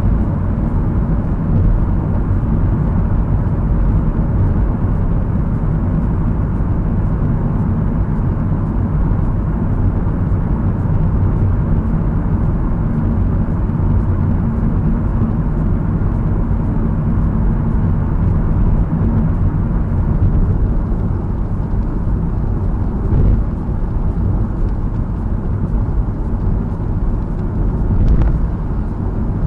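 Steady tyre and engine noise of a Honda Fit cruising at expressway speed, heard from inside the car: a low, even rumble that thins slightly about twenty seconds in as the car leaves a tunnel for wet open road.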